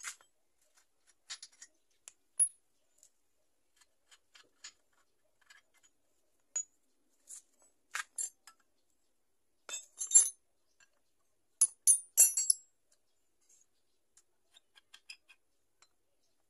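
Scattered metallic clinks and taps of spanners and steel parts being handled while a trike's drive axle is fitted, with a few louder, sharper clinks in the second half.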